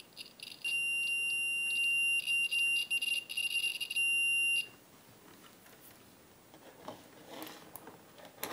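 Digital multimeter continuity beeper sounding one high, steady beep for about four seconds, cutting out briefly several times as the probe tips make and lose contact on the circuit board's solder pads: the ground pads are connected. Faint handling noises follow near the end.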